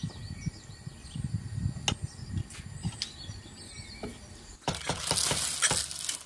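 Wooden spatula spreading and levelling cooked basmati rice in a metal pot: soft rustling and light taps, turning into a louder stretch of scraping and rustling for the last second or two.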